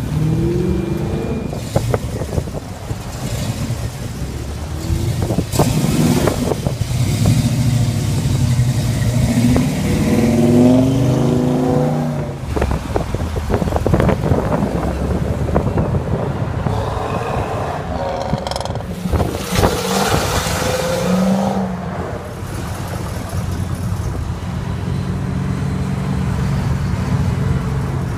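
Muscle cars, among them a Dodge Challenger, pulling away one after another and accelerating hard. Their engines rev up in several rising sweeps as each one passes.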